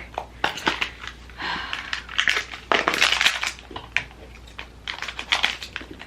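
Packaging crinkling and crackling as it is handled, in a run of irregular bursts while a pin is unwrapped from its advent calendar box.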